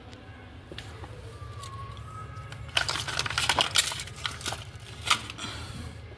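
A burst of rapid clicking and rattling from small hard objects, lasting about two and a half seconds from midway through, over a low steady hum.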